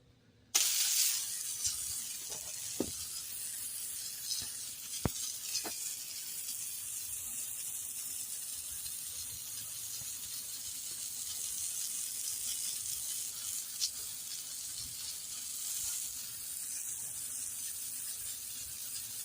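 Garden hose spray nozzle spraying water onto a surface, a steady hiss that starts about half a second in, with a few faint clicks.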